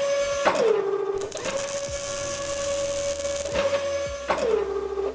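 Synthesized whirring sound effect: a steady electronic hum that dips briefly in pitch about half a second in and again near the end, with a hissing rush in the middle.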